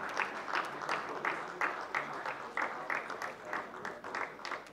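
Audience applauding. The claps come in a fairly steady beat, about three a second, and die down near the end.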